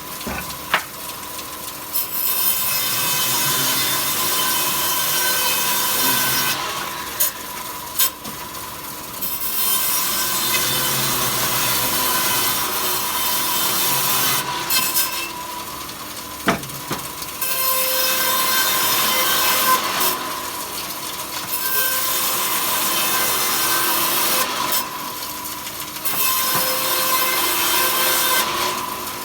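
A saw cutting wood into thin slats in repeated passes, each lasting several seconds, with short pauses between cuts. A steady high tone runs under the whole stretch.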